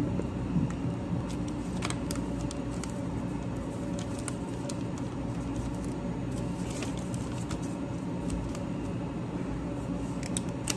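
Steady low hum of cafe equipment, with a few light rustles and clicks as a foil bag and paper invoice sheets are handled.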